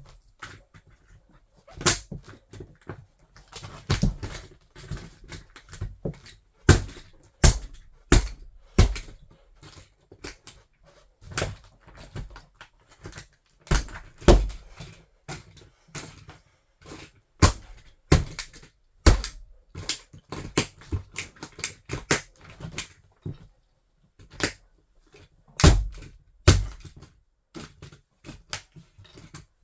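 Toy car cracking and crunching under a wedge sandal: irregular sharp snaps and crackles of breaking plastic, some loud and some faint, with short pauses between bursts.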